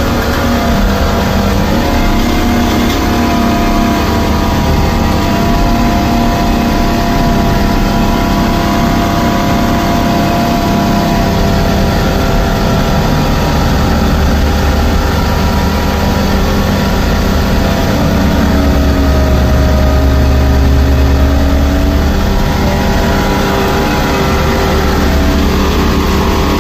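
Vehicle engine running steadily while driving along a rough unpaved haul road, heard from inside the vehicle. Its low drone grows heavier about two-thirds of the way through.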